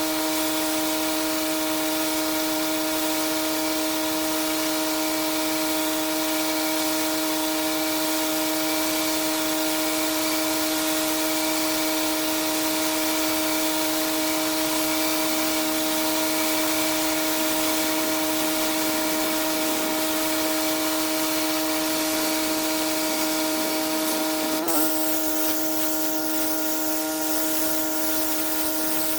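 Pressure washer running steadily: a constant machine hum under the loud hiss of the high-pressure water spray. Near the end the spray hiss suddenly drops off while the hum continues.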